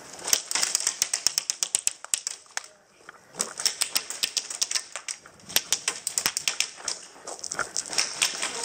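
Airsoft electric guns firing on full auto: several bursts of rapid clicking, with short pauses between them.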